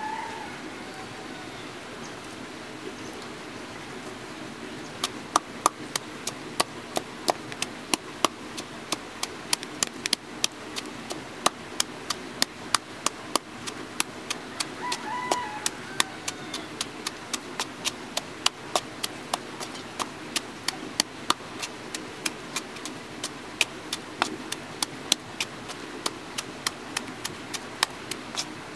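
Wooden pestle pounding chillies and garlic in a small bowl: sharp knocks about twice a second, beginning about five seconds in.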